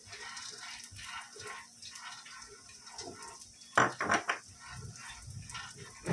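Peeled peanuts frying in a steel kadhai, stirred and scraped around the pan with a perforated plastic spoon; a louder run of sharp knocks about four seconds in.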